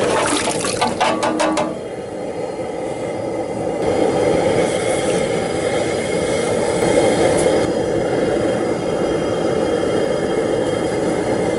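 Propane cooker burner running steadily under a large aluminium stock pot of water. In the first two seconds red potatoes are dumped into the pot in a quick run of knocks and splashes.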